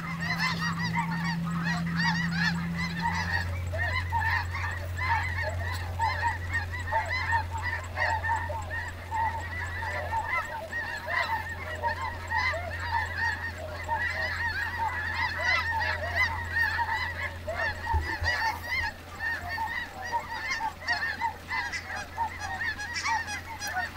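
A huge flock of snow geese calling overhead: a dense, unbroken din of overlapping high honks.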